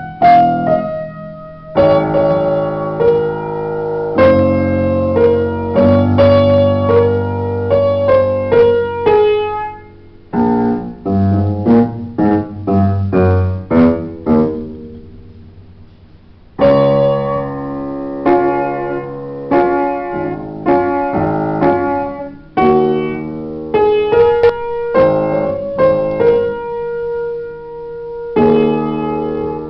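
Solo upright piano played: a melody over chords, with struck notes ringing out. About halfway through, a held chord fades away for a couple of seconds before the playing picks up again.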